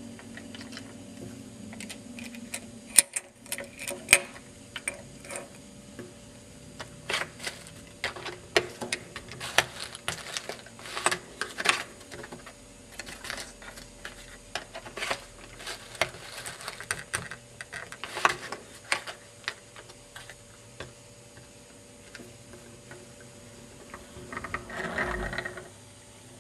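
Lego plastic parts clicking and clacking irregularly as the hand-worked cart tipper arm on a Lego model garbage truck is moved and adjusted. A denser, louder clatter comes about 24 seconds in.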